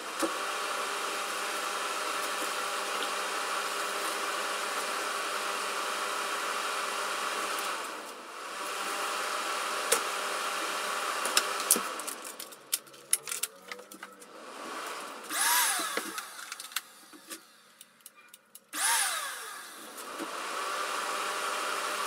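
Fan motor of a homemade filtered shop air cleaner switched on and running with a steady hum. It dips briefly about eight seconds in and cuts out at about twelve seconds, with clicks and a couple of rising-and-falling tones. It starts running steadily again a few seconds before the end.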